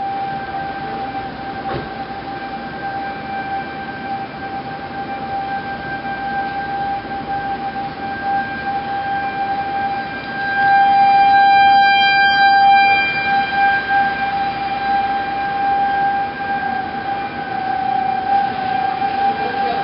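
Outdoor tornado warning siren sounding one steady tone over a constant rushing noise. It swells louder for a few seconds about halfway through, then fades back, as a rotating siren does.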